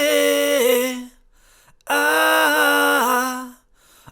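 A single voice singing held 'ooh' notes a cappella, using a polyphonic technique that sounds two real notes at once. The lower note holds steady while the upper one steps down partway through each note, with a short breath gap between two held notes.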